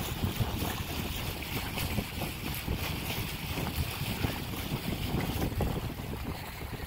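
Wind gusting on the microphone over a steady rush of water along the hull of a sailboat moving fast under sail.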